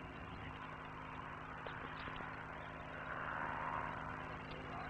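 Faint steady electrical hum and hiss from an old film soundtrack, with a soft swell of noise about three seconds in and a few faint ticks.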